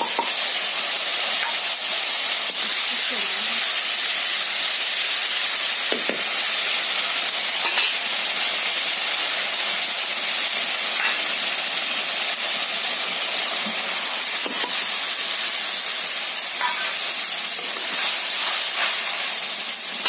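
Freshly ground wet masala paste sizzling steadily in hot oil with fried onions in a kadhai, with a few faint knocks now and then.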